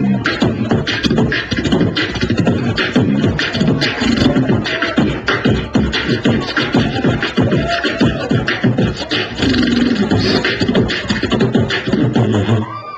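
Beatboxing: one person's mouth and voice make a fast drum rhythm of kick, snare and hi-hat sounds. It stops abruptly just before the end.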